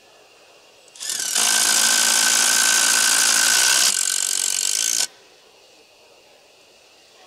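Two Aimsak cordless impact drivers hammering long wood screws into a timber block at the same time. A loud, even run of about four seconds starts about a second in and cuts off sharply.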